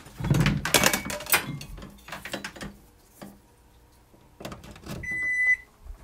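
Clatter and knocks of kitchen items being handled, loudest in the first second and a half. About five seconds in, a microwave oven sounds a single high electronic beep lasting just over half a second.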